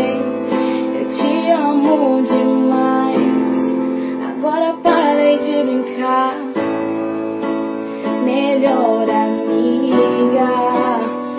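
Song music: a girl's voice singing over keyboard accompaniment.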